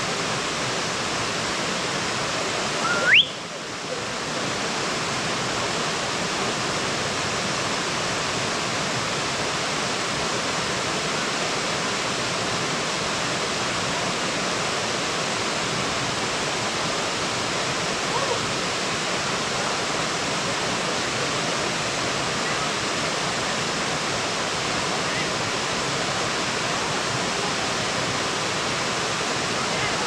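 Steady rushing of water spilling over a small rocky cascade in a shallow creek. About three seconds in comes a brief, loud, rising whistle, and the water noise dips for a moment right after it.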